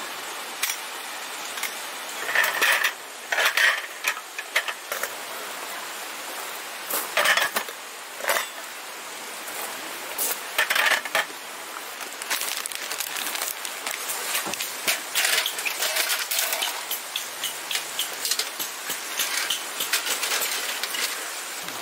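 Metal camp gear clinking and clattering as it is handled: a folding metal camp table's frame and slats clack as it is set up, in scattered bursts and then a run of small clicks. A steady rush of a mountain stream runs underneath.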